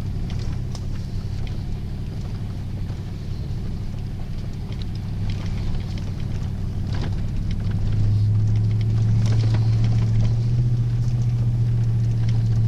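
Vehicle engine and road noise heard from inside the cab while driving a rough forest road: a steady low drone that grows louder about eight seconds in, with scattered knocks and rattles.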